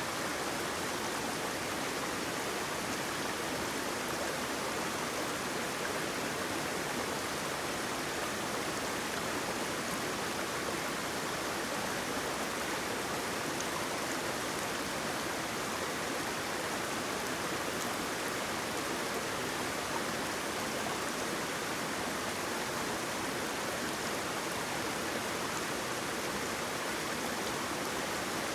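Steady rush of flowing water, a stream or small waterfall, an even hiss with no change in level.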